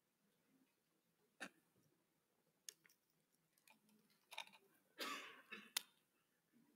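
Near silence, broken by a few faint clicks and a short, slightly louder rustle about five seconds in.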